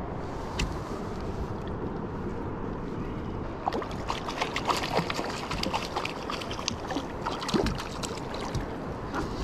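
Water washing against a fishing kayak's hull, then from about three and a half seconds in a run of irregular splashes and sharp clicks as a hooked fish is brought thrashing to the surface alongside the kayak.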